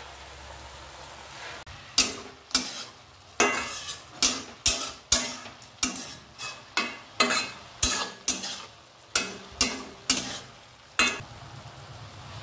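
Metal spatula knocking and scraping against a metal kadai as spinach and potato are stirred, about two strikes a second, each with a short ring. The strikes start about two seconds in and stop near the end, over a faint sizzle from the pan.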